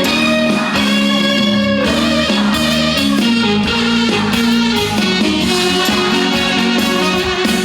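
Instrumental break of a live trot song, with a guitar playing the melody over the band backing.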